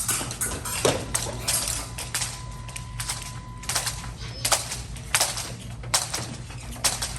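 Épée fencing: irregular sharp clicks and metallic knocks of blades and footwork on the piste. About a second in, a steady tone starts and holds for nearly three seconds.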